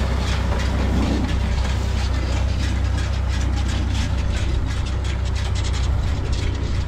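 Tractor engine running steadily while it pulls a side-delivery bar hay rake through cut alfalfa, with a fast, even clatter from the rake's reel and drive over the engine's low drone.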